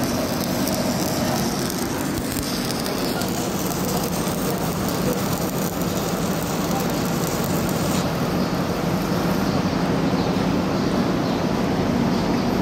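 Stick-welding arc crackling and sizzling steadily as a covered electrode burns along a steel beam, fed by an inverter welding machine.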